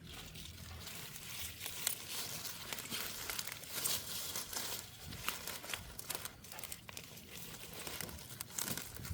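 Continuous rustling and crinkling of dry material being handled, with many small crackles and snaps.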